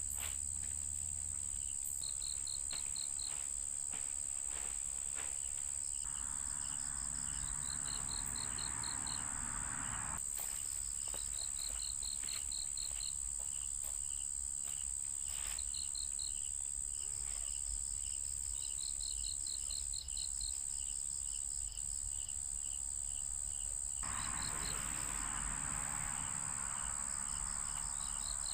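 Chorus of crickets and other insects: one steady high-pitched trill throughout, with short rapid chirp trains and an even pulsing chirp over it. A rushing hiss rises for a few seconds about six seconds in and again near the end.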